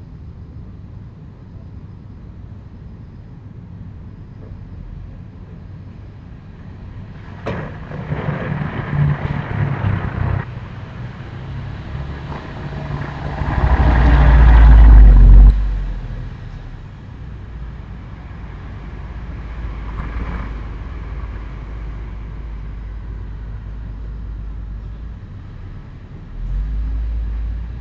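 Road vehicles passing, with one sharp bang about a quarter of the way in, partly covered by a passing car. About halfway, a heavy low rumble swells to the loudest point and cuts off suddenly.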